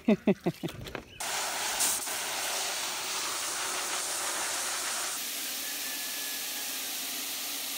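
Garden hose spray nozzle jetting water into a plastic kiddie pool to rinse out mud: a steady hiss that starts about a second in and turns a little duller about five seconds in.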